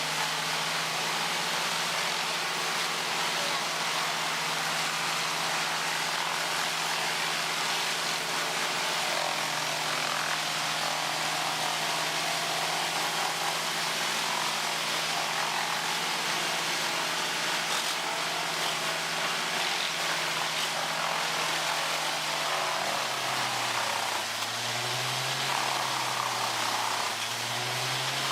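Industrial wood chipper running hard, its engine holding a steady note under the constant noise of wood being chipped. Near the end the engine pitch dips and recovers twice.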